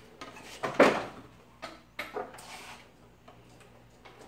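Knocks and clunks as a tracked power wheelchair is backed off its wooden shipping pallet, the rubber tracks and frame bumping on the boards. The loudest knock comes about a second in, with a few smaller ones around two seconds.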